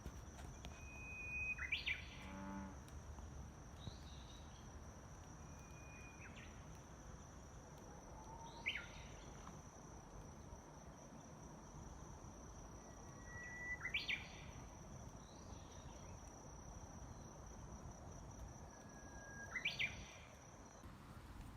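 A songbird singing outdoors, repeating a short held whistle that breaks into a quick rising-and-falling flourish about every five or six seconds. A steady high insect trill runs beneath it and stops shortly before the end.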